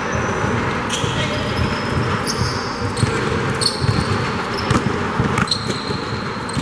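Basketball game in play: the ball bouncing and players' footsteps, with sneakers squeaking on the court in short high squeaks several times.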